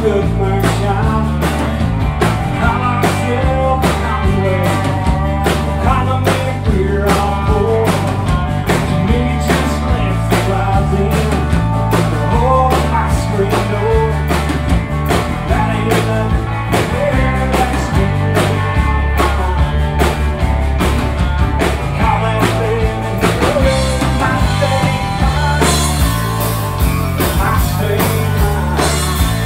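Live country-rock band playing: drum kit keeping a steady beat under bass guitar, strummed acoustic guitar and electric guitar, with a lead vocal sung over it.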